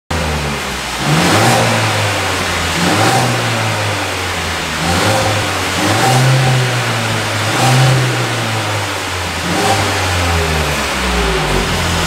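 Mercedes-Benz CLA 200's turbocharged four-cylinder engine revved repeatedly while stationary through its stock factory exhaust. It is a series of short throttle blips, each rising and falling in pitch, about every one and a half to two seconds.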